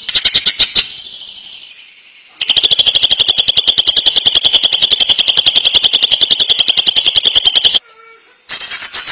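Cucak ijo (green leafbird) singing a rapid, rattling 'ngentrok' phrase: a short burst of clicking notes at the start, then a long even rattle of about a dozen notes a second lasting some five seconds, and a further burst near the end.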